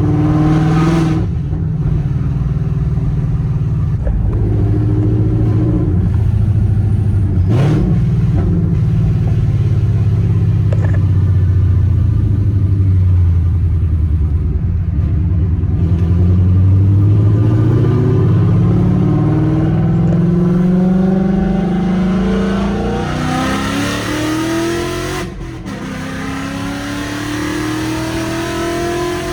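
2018 Ford Mustang GT's 5.0-litre V8, straight-piped with the exhaust dumped right after the headers, pulling under acceleration. It holds a steady note for a while, then climbs in pitch, drops at a gear change about three quarters of the way through, and climbs again.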